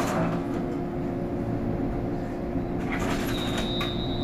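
Shinano Railway 115-series electric train standing at the platform, its onboard equipment giving a steady hum. A thin, high, steady tone begins about three seconds in.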